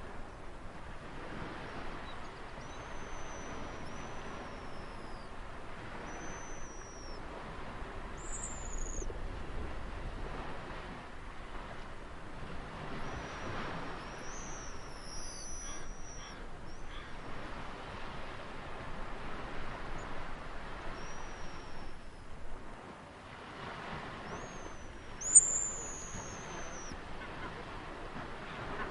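Ocean waves washing in swells, with birds repeatedly calling in thin, high whistles that fall in pitch; the loudest call comes about 25 seconds in.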